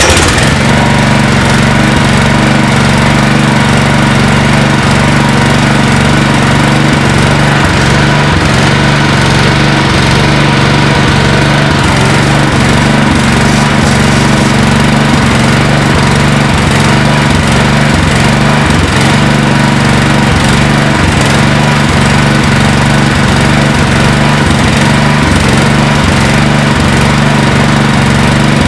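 Generac 5500-watt portable generator's 11 hp gasoline engine running steadily at a constant speed.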